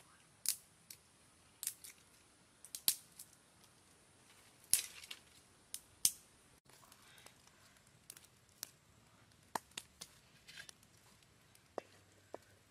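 Irregular sharp snips and snaps of plant material being cut by hand, loudest in the first half, then fainter scattered clicks.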